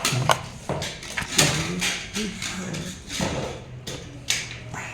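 Irregular sharp knocks and clatter of objects being handled, about half a dozen spread over a few seconds, with brief low voice-like sounds in between.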